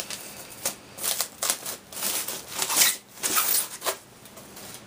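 Thin plastic foam packaging bag rustling and crinkling in irregular bursts as a boxed electronic unit is slid out of it, dying down near the end.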